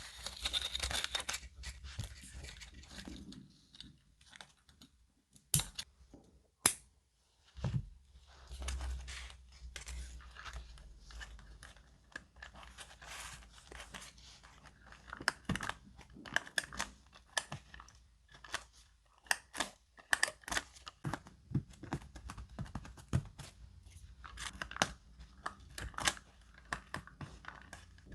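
Paper being handled by hand: crinkling, tearing and scissor snips in a long run of short, sharp strokes. Two louder sharp clicks come about five and a half and six and a half seconds in, and the strokes grow quicker and denser through the second half.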